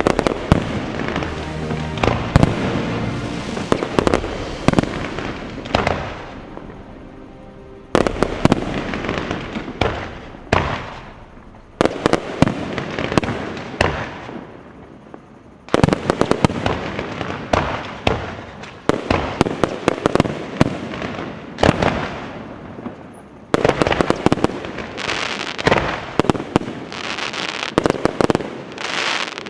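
Fireworks display: aerial shells bursting in rapid barrages of sharp bangs and crackle. The barrages come in several waves, each fading off before the next one starts.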